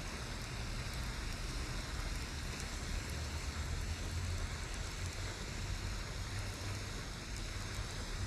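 Steady outdoor noise: wind rumbling on the microphone, with an even hiss over it.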